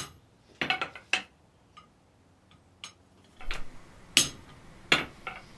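Hammer tapping a cold chisel against a cold square mild-steel bar on an anvil, scoring a mark into it: about ten sharp metallic clinks at uneven intervals, some in quick pairs.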